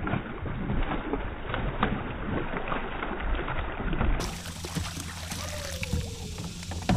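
A hooked bass thrashing and splashing in the water beside a kayak as it is netted, with knocks and clatter of the landing net and gear against the hull and a sharp knock near the end.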